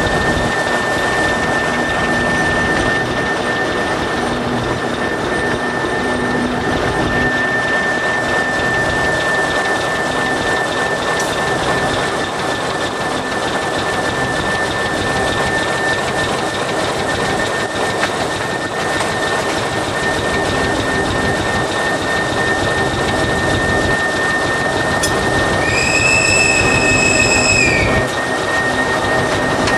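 TEM2 diesel shunting locomotive running along the track, its engine and wheels on the rails making a steady rumble with a thin high whine over it. Near the end a high-pitched tone sounds for about two seconds and cuts off.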